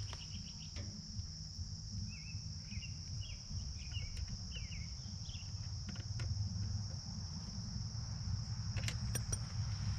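Crickets chirping in a steady high trill over a low rumble, with a few sharp clicks near the end.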